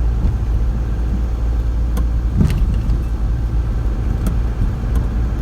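Steady low rumble of a vehicle driving, heard from inside, with a few sharp clicks or rattles.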